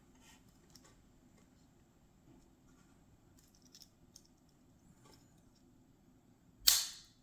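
Faint small clicks as a Swiss Army knife's small spring scissors are opened and handled. Near the end there is one short, loud noisy sound.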